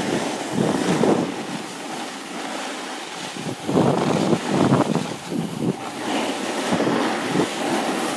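Wind rushing over a phone's microphone while snowboarding downhill, with the board scraping over the snow in irregular louder surges, strongest about halfway through.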